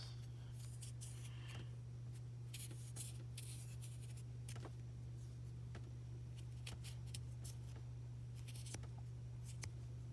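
Light scratching and scattered small clicks of plastic launcher parts being handled and cleaned by hand, over a steady low hum.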